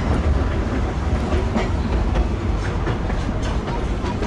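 Two-foot narrow-gauge railway passenger car rolling along the track: a steady low rumble with irregular clicks and clatter of the wheels over the rails.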